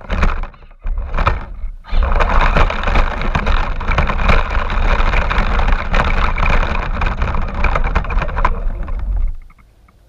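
Radio-controlled car running, picked up by the GoPro mounted on it: a loud, noisy rush with many small knocks. It drops out twice in the first two seconds and falls away suddenly a little after nine seconds.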